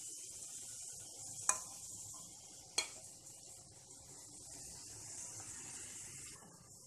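Hot oil sizzling steadily as banana-and-potato kofta balls deep-fry, with two sharp clinks of a metal slotted spoon against the pan in the first three seconds as the koftas are lifted out.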